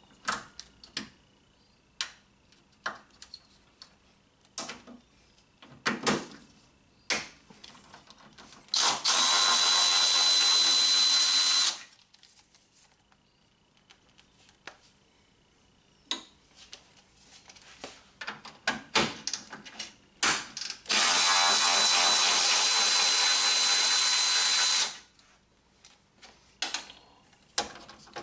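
Milwaukee M12 cordless electric ratchet running in two steady bursts of about three and four seconds, beginning about nine and twenty-one seconds in, backing bolts out of the radiator support bracket. Scattered clicks and clinks of tools and bolts come between the bursts.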